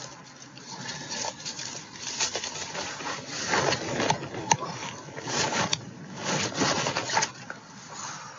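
Irregular rustling and scraping in short uneven bursts, as of gear or fabric being handled close to the microphone.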